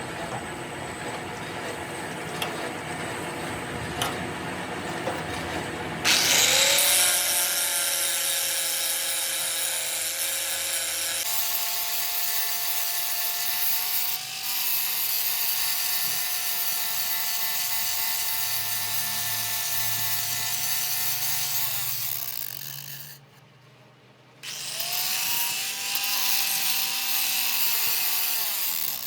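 An electric power tool working metal. Rough rubbing to start, then about six seconds in the motor spins up and runs at a steady whine under the abrasive rubbing. It winds down a little before the 23-second mark, stops briefly, spins up again and runs on.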